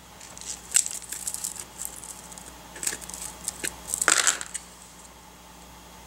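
Small paper pieces rustling and crinkling as they are handled, with scattered light clicks and taps and a louder rustle about four seconds in.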